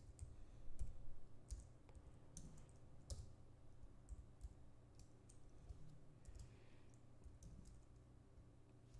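Faint, irregular clicks of computer keyboard keys being typed on, thinning out in the second half.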